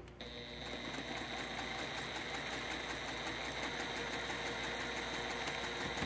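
Domestic electric sewing machine stitching a seam through pieced quilt fabric, running at an even, slow speed with a steady high whine and regular needle strokes.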